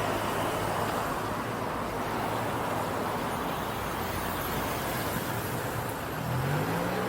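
Urban street traffic noise: a steady hum and rush of passing vehicles, with an engine note rising in pitch near the end.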